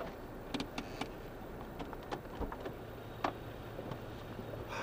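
Irregular light ticks and taps of raindrops striking the car's windscreen and body, heard from inside the cabin over a faint steady low engine hum.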